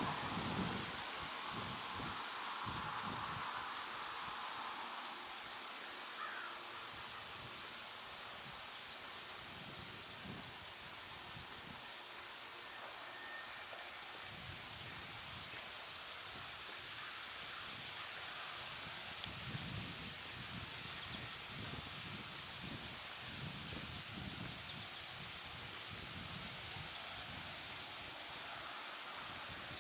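Steady chorus of insects, an evenly pulsing high trill at two pitches that holds throughout, with occasional low rumbling underneath.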